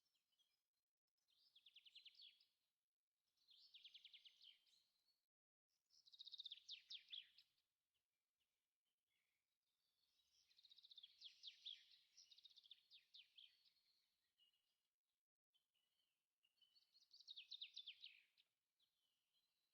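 Faint birdsong: a small songbird repeating short phrases of rapid high trilled notes, each about a second or two long, with brief pauses between them.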